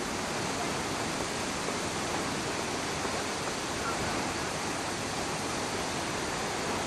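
Steady rush of fast-flowing water, an even unbroken noise without pauses.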